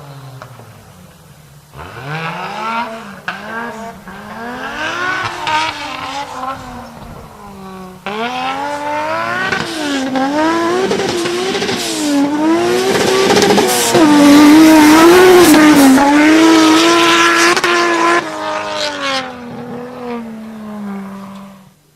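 Nissan Patrol's RB25DET turbocharged 2.5-litre straight-six being driven hard, revs rising and falling over and over. It picks up sharply about two seconds in, grows louder from about eight seconds in, and cuts off abruptly near the end.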